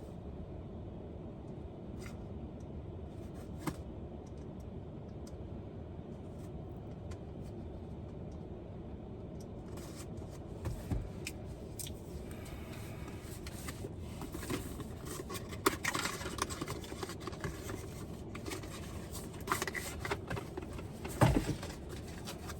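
A box cutter cutting into a cardboard box and the packaging being handled: scattered clicks, scrapes and rustling, busier in the second half, over a steady low hum.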